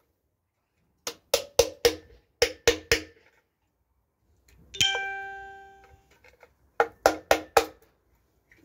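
Sharp metal-on-metal taps in quick groups of three or four, like a hand tool striking the engine, with one blow about halfway through that rings on for about a second.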